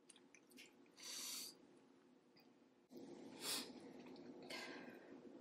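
A person eating quietly: three short breaths through the nose between bites, with faint small mouth clicks.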